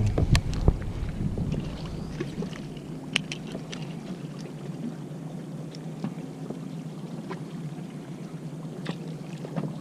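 Fishing boat's engine running at idle with a steady low hum, with a brief low rumble about a second long at the start and scattered light clicks and taps.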